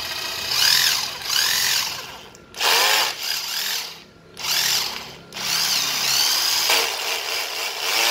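National EZ6230 15.6 V cordless drill/driver running free in reverse, in four bursts, its motor whine rising and falling in pitch as the variable-speed trigger is squeezed and eased.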